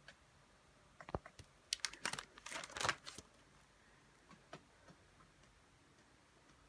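A page of plastic trading-card sleeves being turned in a ring binder: a quick run of crinkles and clicks lasting about two seconds, then a few faint ticks.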